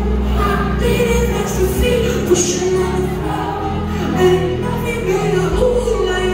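Live band playing a pop song over a steady bass line and beat, with a male lead singer singing into the microphone.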